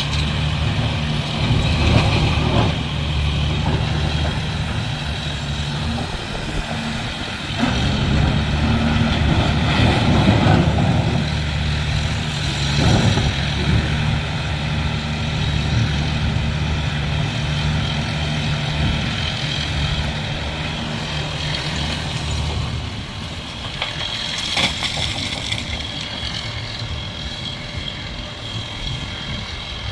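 Heavy diesel engine of construction machinery running steadily, easing off about three-quarters of the way through, with a few short metallic knocks.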